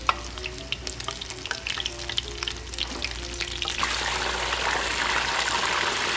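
Batter-coated zucchini flowers deep-frying in hot vegetable oil, sizzling with many fine pops. About four seconds in the sizzle becomes a denser, louder hiss.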